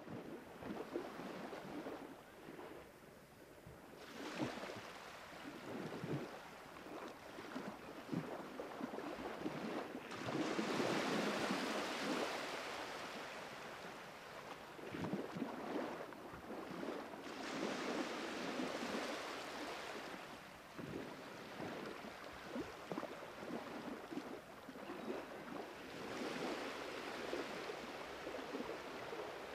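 Sea waves washing in: a rushing noise that swells and fades every few seconds.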